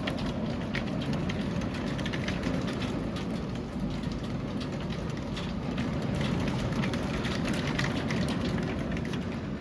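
Large hailstones and heavy rain pelting down: a dense, steady hiss full of sharp individual impacts.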